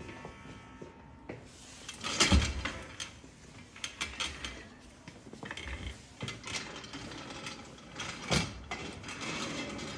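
Small metal pedicure tool scraping and clicking along the edge of a toenail in irregular short strokes, with two louder knocks about two and eight seconds in.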